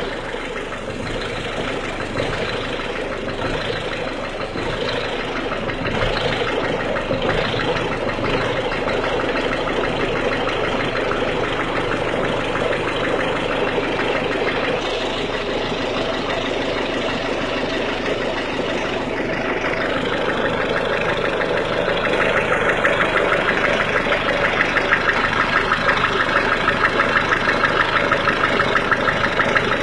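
A 1.6 HDi four-cylinder diesel engine idling cold with a rapid, rhythmic clatter. The clatter grows louder about two-thirds of the way through.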